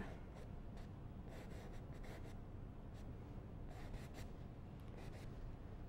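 Faint, irregular scratchy strokes of a small paintbrush working oil paint on canvas, over a low steady room hum.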